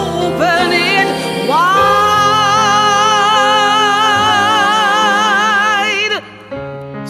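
Soul-gospel song: a solo female voice glides up and holds one long high note with wide vibrato over a choir and piano, breaking off about six seconds in; softer piano and choir carry on after it.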